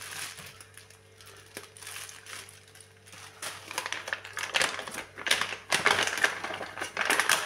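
Irregular crinkling and crunching rustles from whole dried spices being handled and picked out to add to the pot. The rustles are sparse at first and grow dense and busy over the second half.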